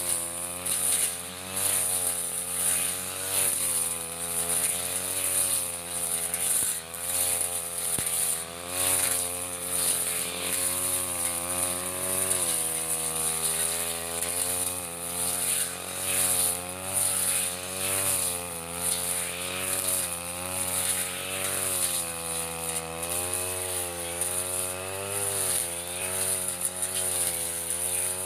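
Backpack brush cutter's small petrol engine running hard while cutting thick grass, its pitch dropping and rising again over and over as the load comes and goes with each swing.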